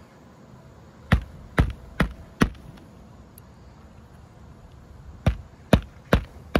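Hammer driving roofing nails by hand into a lifted asphalt shingle: four sharp strikes about two a second, a pause of a few seconds, then four more.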